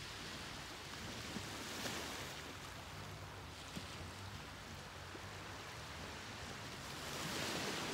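Ocean surf washing onto the shore: a steady hiss of water that swells with a wave about two seconds in and again near the end.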